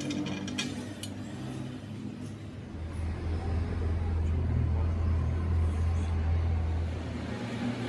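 Lathe motor running with a steady low hum that grows louder about three seconds in and eases off near the end, with a few light clicks at the start.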